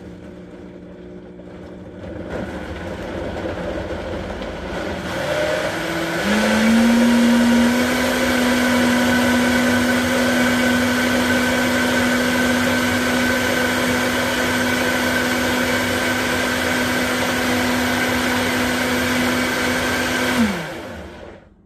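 Countertop blender running, blending a smoothie of frozen banana and strawberry slices with almond milk, peanut butter and yogurt. It builds up, steps up to a higher speed about six seconds in, runs steadily, then winds down and stops near the end.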